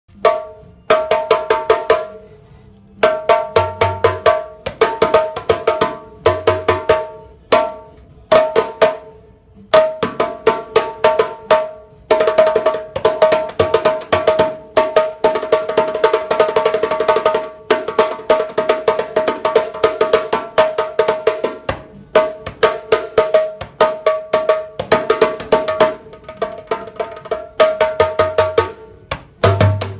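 Djembe played by hand in rhythmic phrases of sharp, ringing strokes separated by short pauses, with a fast unbroken run of strokes in the middle. A few deep low strokes come in, once near the start and again near the end.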